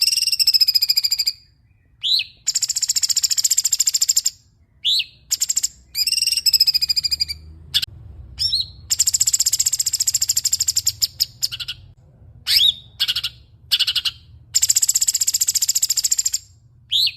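Songbird singing loudly: a clear whistled note at the start, then long, fast rattling trills of about two seconds each, three times, with short rising chirps between them.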